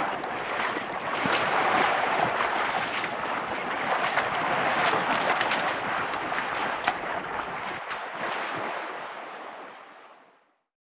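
African elephants swimming and wading, the water splashing and sloshing around them in a steady rush of small splashes. The sound fades out near the end.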